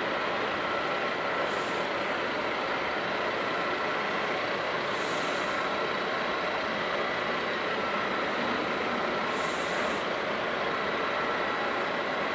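Fire engines' engines and pumps running with a steady drone and a faint steady whine, broken by three short high hisses a few seconds apart.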